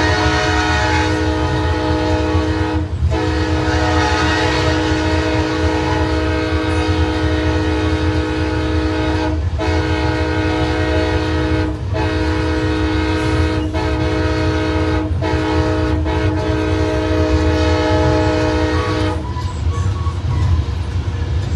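A diesel locomotive's multi-chime air horn sounds in several long blasts with brief breaks and stops about two seconds before the end. A steady heavy low rumble from the train runs underneath.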